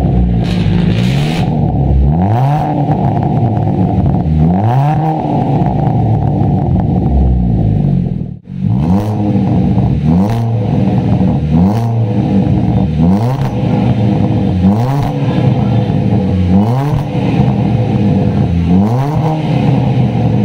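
Hyundai Reina's four-cylinder petrol engine revved repeatedly through an HKS black titanium can muffler. The exhaust note climbs and falls back to idle about every two seconds, with a brief break about eight seconds in.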